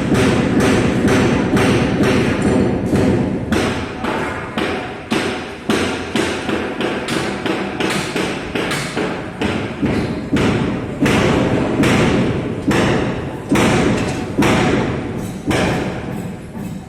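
Rapid, even thuds, about three a second, continuing without a break.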